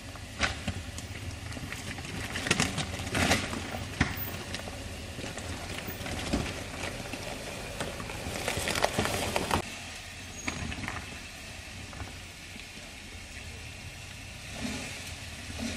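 A 4x4 SUV's engine running low and steady as it crawls over a bed of loose rocks, with irregular crunches and knocks of stones under the tyres.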